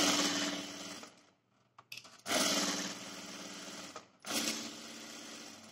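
Industrial sewing machine fitted with a gathering foot, stitching gathers into a strip of fabric in three short runs. Each run starts loud and eases off, with brief pauses between.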